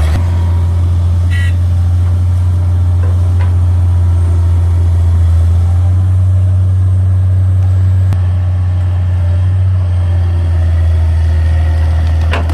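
Heavy vehicle's diesel engine running steadily with a deep, even drone. A brief high squeak comes about a second and a half in.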